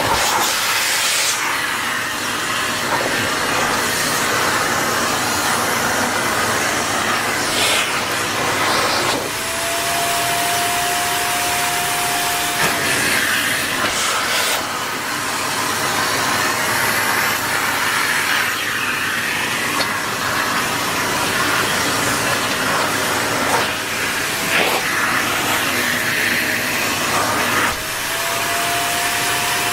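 Vacuum cleaner running steadily with a rushing noise. Twice, a whine rises in pitch and holds for a few seconds before dropping back.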